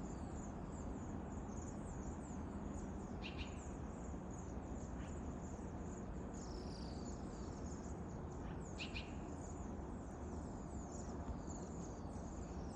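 Many small songbirds giving short, high-pitched chirps over and over, with a few louder calls scattered through, against a steady low background rumble.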